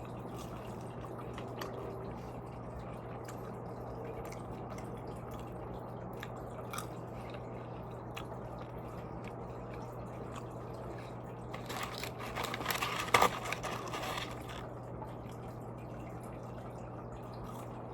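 A person chewing and crunching food close to the microphone, mostly soft, with a louder stretch of crunching about twelve seconds in. A steady low hum sits underneath.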